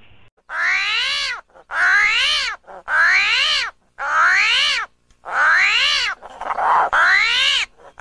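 A string of about six meow-like calls, roughly one a second, each rising and then falling in pitch.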